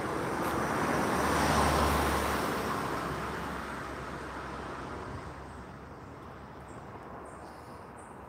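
A car passing by on the lane. Its noise rises to a peak about two seconds in, then fades away over the next few seconds.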